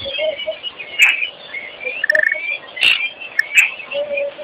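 Wattled starlings calling: many short chirps and whistles overlapping, with a brief rapid trill about two seconds in and a few short low notes beneath.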